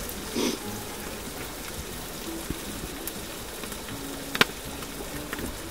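Corned beef hash of diced potatoes, corned beef and onion frying in a pan on a camping gas stove, a steady soft sizzle. A single sharp click about four and a half seconds in.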